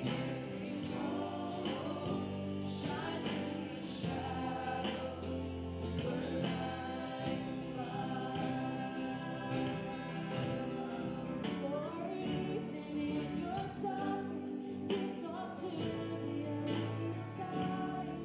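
Background music: a song with sung vocals over a steady accompaniment.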